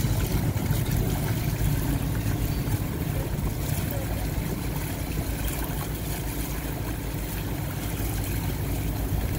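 Steady low drone of a boat's engine under way, with water splashing along the hull.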